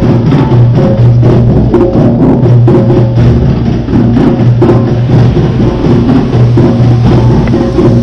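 Intro music with a driving bass line and a steady percussive beat of drum and wood-block hits.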